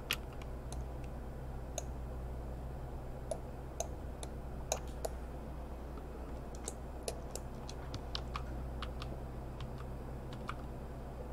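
Irregular, scattered clicks of a computer mouse and keyboard, some close together, over a steady low hum.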